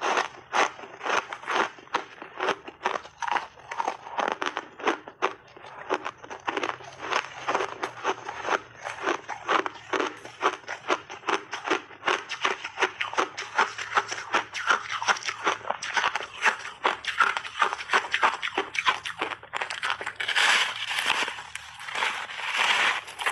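Refrozen block ice being bitten and chewed: rapid, crisp crunching, several crunches a second, with a louder stretch of grinding crunches from a big bite near the end.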